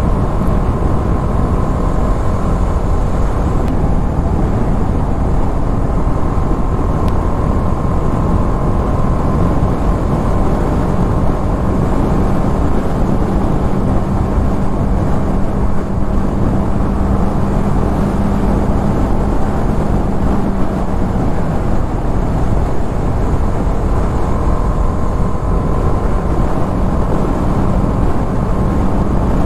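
TVS Apache RR 310 motorcycle cruising at steady speed: a heavy, even rush of riding wind and road noise, with the single-cylinder engine's steady hum coming through at times.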